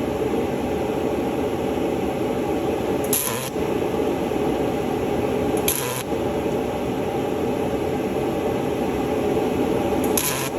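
Welding arc crackling steadily as a diesel torque converter is welded. The crackle breaks briefly three times, each break marked by a short high hiss.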